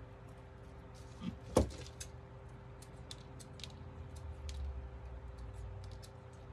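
Small handling clicks and rustles of hot-gluing a raffia bundle onto a ribbon bow, with a sharp knock about a second and a half in, over a faint steady hum.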